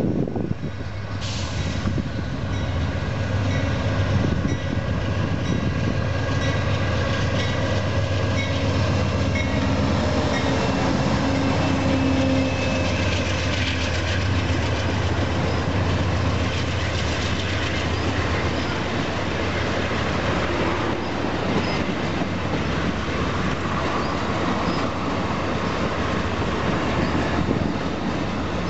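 Amtrak passenger train passing close by at speed. Two GE P42DC diesel locomotives come first, their engine drone building to its loudest about ten to thirteen seconds in. A steady rumble of the bilevel passenger cars' wheels on the rails follows.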